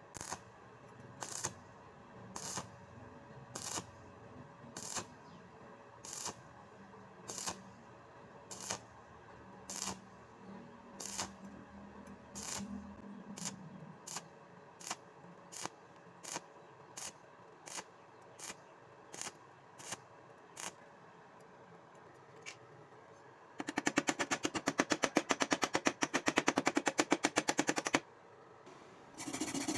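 Stick (arc) welding a joint in steel tubing, the electrode's arc struck and broken in short crackling bursts, about once a second and then about twice a second. Near the end comes a fast rattling run of strikes lasting about four seconds, as the slag is cleaned off the finished bead.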